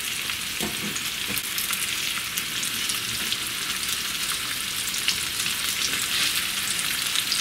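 Cornstarch-coated chicken cubes sizzling steadily in hot vegetable oil in a frying pan, with a fine crackle. From about halfway through, a slotted spoon stirs the pieces around the pan.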